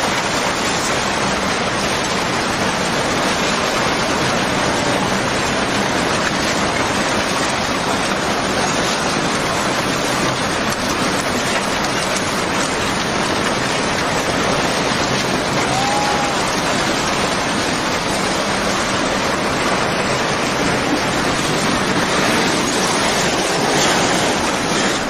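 Steady rushing noise of tsunami floodwater churning with debris as it pushes through and wrecks houses.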